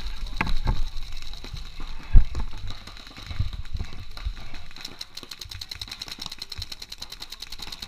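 Paintball markers firing: from about five seconds in, a fast, even string of sharp shots, about ten a second, like an electronic marker on rapid fire. Before that, low irregular thumps and one sharp knock about two seconds in.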